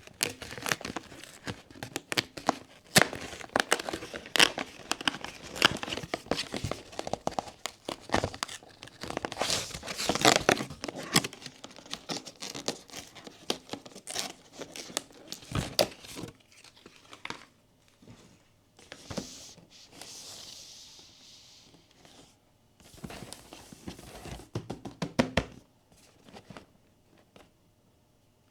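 Plastic and paper blind-box packaging being crinkled and torn open close to the microphone: dense crackling for about the first half, then sparser handling with a brief hiss, dying away to near silence near the end.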